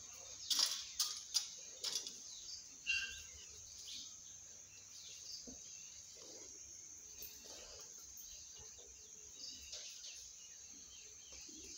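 Indian peacock's beak pecking at a small metal tin, four sharp taps in the first two seconds, over a steady high-pitched background hiss. A short bird chirp about three seconds in.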